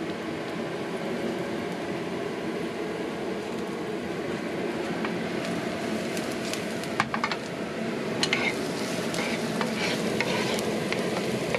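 Food sizzling and frying in hot olive oil in a pan, steady throughout. From about seven seconds in, a spatula clicks and scrapes against the pan as it is stirred.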